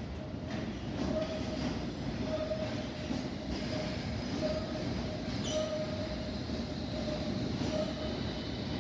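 London Underground S Stock train running into the platform and slowing: a steady rumble of wheels on rail with a squeal that comes and goes about once a second. A short, sharper squeal comes about five and a half seconds in, and a high electric whine rises into hearing near the end as the cars pass close by.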